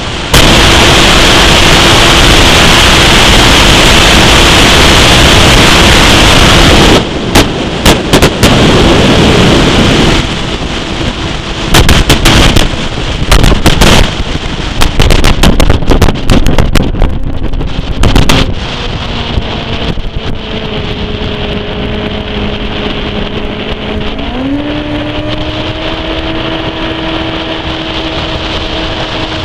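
Small aluminum fishing boat under way at speed, its outboard engine running under heavy wind buffeting on the microphone that overloads it for the first third, with a run of loud crackling gusts or hull thumps through the middle. In the last third the wind eases and the engine's hum comes through, its pitch dipping a little and then stepping up as it revs higher.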